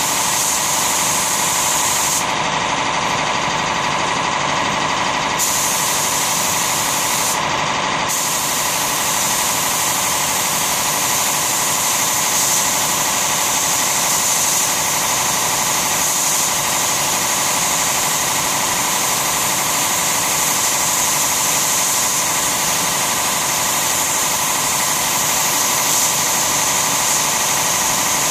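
Siphon-feed compressed-air spray gun hissing steadily as it sprays a tinted mahogany finish coat, with an air compressor running.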